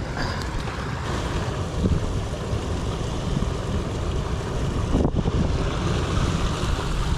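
Steady rush of a shallow, rocky mountain stream running over stones, with wind buffeting the microphone.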